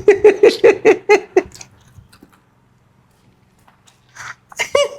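A person's voice in quick, even pulses for about a second and a half, then a pause, with short vocal sounds again near the end.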